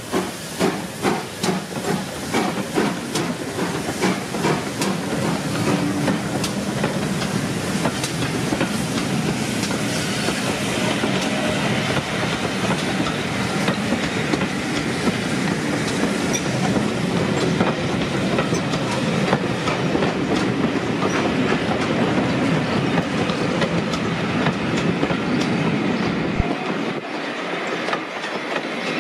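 Steam-hauled passenger train passing close by. The locomotive's exhaust beats, about two a second, are heard in the first few seconds. Then the coaches roll past with a steady rumble and wheels clicking over the rail joints.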